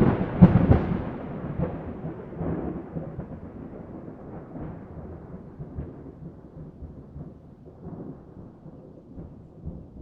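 Thunder: a sharp crack about half a second in, then a long rolling rumble that slowly fades away.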